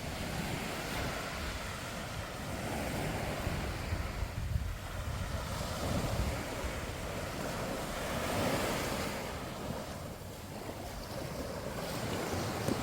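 Sea surf washing onto the beach in slow swells that rise and fall every few seconds, with wind rumbling on the microphone.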